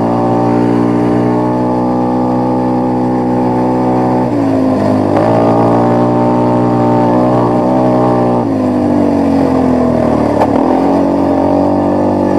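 ATV quad engine running under way at a steady pitch. The note dips and climbs back a few times as the throttle changes, first about four seconds in and again near the end.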